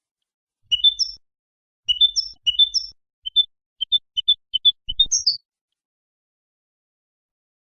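European goldfinch singing: short twittering phrases of high chirps, then a quicker run of single notes ending in a falling note, after which the bird goes quiet for the last two seconds.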